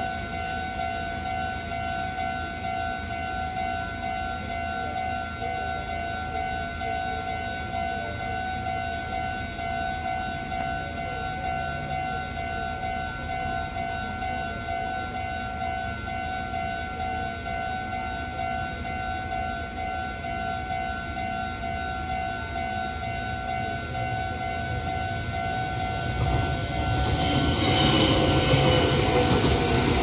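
Japanese level-crossing warning alarm sounding steadily, an electronic tone repeating rapidly. About 26 seconds in, a red Meitetsu electric train approaches and passes through the crossing, its running noise growing louder until it is the loudest sound.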